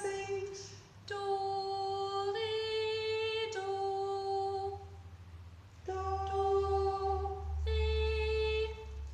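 A woman singing long, steady held notes that step up and down between two neighbouring scale tones (low, high, low, then after a short pause low, high), as in a solfège exercise on the first notes of the scale.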